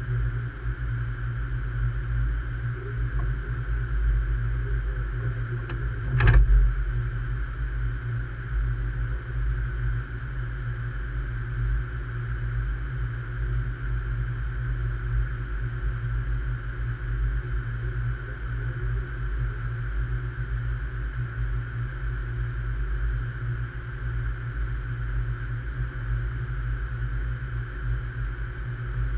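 A stationary train's running equipment making a steady low rumble with a steady higher hum over it, and one sharp knock about six seconds in.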